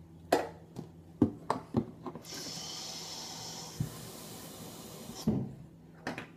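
Plastic drink bottle handled with a few sharp knocks and clicks, then water runs from a tap into it for about three seconds and shuts off, followed by more knocks as the bottle is set down and handled.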